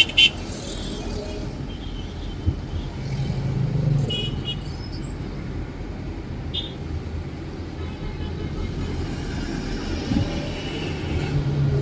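Road traffic: a steady rumble of passing cars, swelling as vehicles go by, with two sharp clicks right at the start.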